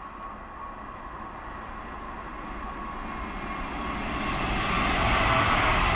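Red regional multiple-unit train approaching along the track, its running noise and wheel-on-rail rumble growing steadily louder until it is close by near the end.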